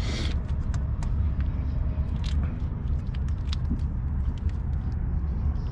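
Fingers pressing and rubbing a tire sticker's clear carrier film down onto the glued rubber sidewall, making scattered small clicks and crackles over a steady low rumble.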